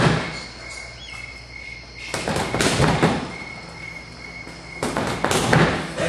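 Boxing gloves punching a freestanding punching bag in three quick combinations: one at the start, one about two seconds in, and one about five seconds in, with short pauses between.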